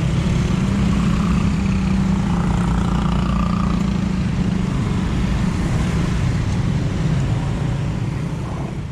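Steady low rumble of road vehicles with an engine hum, slowly fading near the end.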